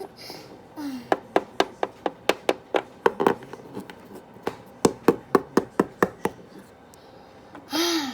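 A quick run of light, sharp taps on a hard surface, about four a second for some five seconds with a short break midway, such as a small plastic toy figure hopped along a tabletop. A brief voice sound comes near the end.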